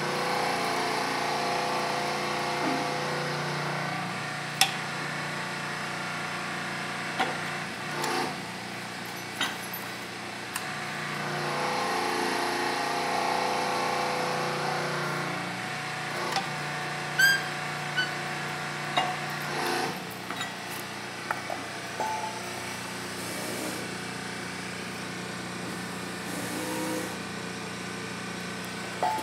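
Hydraulic punching machine's electric pump unit running with a steady hum, growing louder for a few seconds twice as it works through a punch stroke on a thick steel plate. Several sharp metal clanks and knocks sound through it.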